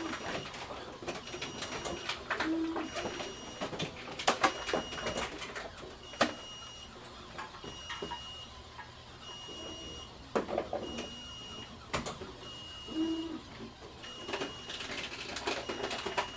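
Grocery store bottle return machine (reverse vending machine) at work: a short high electronic beep repeating every second or two, with several sharp clunks and clatter over a steady mechanical background.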